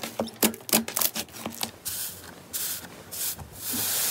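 Hands pressing and squeezing slime. For the first couple of seconds there are sticky clicking pops several times a second. Then a hissing, crackling rub takes over and grows louder near the end.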